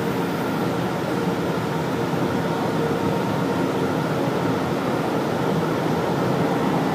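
Steady hum of a São Paulo Metro train standing at the platform with its doors open, its on-board equipment running, with a few faint constant whining tones over the noise.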